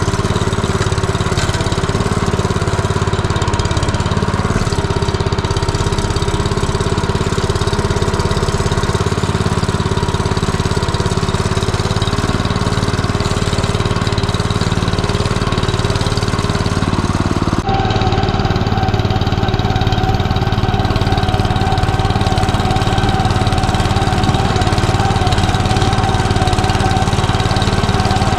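Belarus 09N walk-behind tractor's single-cylinder petrol engine running steadily under way. About two-thirds of the way through, the engine note changes abruptly to a higher, steady pitch.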